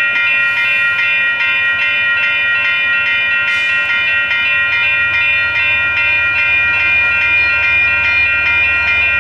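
Railroad grade-crossing bell ringing rapidly and steadily, about four strokes a second, warning of an approaching train. A low rumble from the oncoming locomotive grows near the end.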